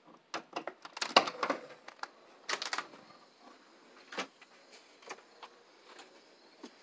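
Clicks and knocks of a door being opened and shut and a plastic bowl being handled and carried, busiest in the first three seconds, then a few sparse clicks.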